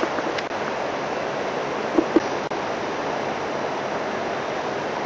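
Steady hiss-like background noise, broken by two short taps about two seconds in.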